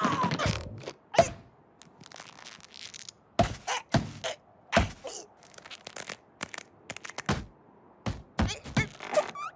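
Cartoon impact effects: a string of separate, irregular knocks and thunks as a striped tube hanging on a rope bumps against a rock cliff face, after a short falling whine at the very start.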